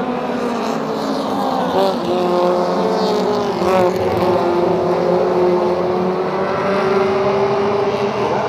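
Several stock car engines running hard on a short oval, their overlapping notes rising and falling as they pass and change throttle. One engine note holds strong from about two seconds in.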